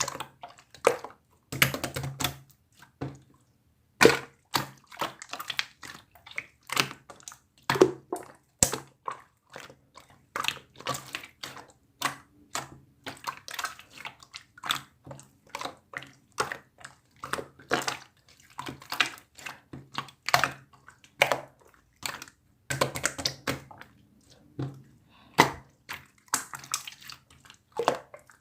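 Clear slime being squished and pressed, giving a fast, irregular string of wet clicks, pops and squelches.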